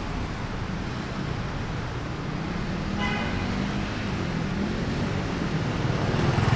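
City street traffic on a wet road: cars and motorbikes running past, with a short horn toot about three seconds in and a motorbike engine getting louder as it comes close near the end.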